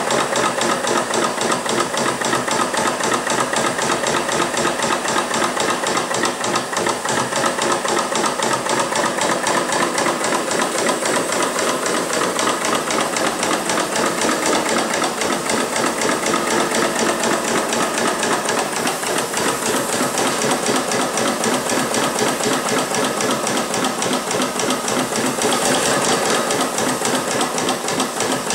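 Stuart Turner 5A single-cylinder model steam engine running on compressed air, its exhaust puffing in a steady, even beat with a light hiss of air.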